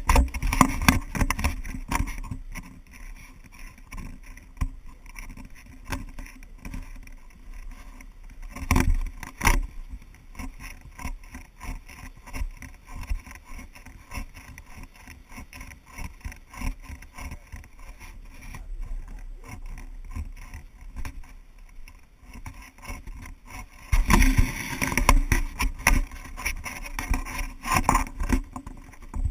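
Wind buffeting a small action-camera microphone: an uneven low rumble with irregular knocks and rustles, swelling into louder gusts about 9 s in and again from about 24 s on, with footsteps on a dirt trail.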